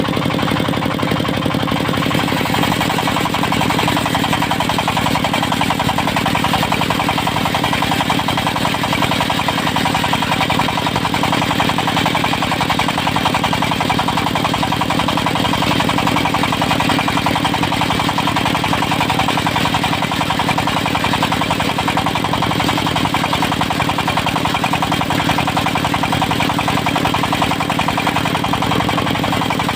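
The engine of a portable circular sawmill running steadily with a rapid knocking beat.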